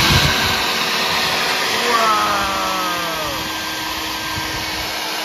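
EGO cordless battery leaf blower running at full power: a steady rush of air with a motor whine. About two seconds in its pitch drops, then holds steady.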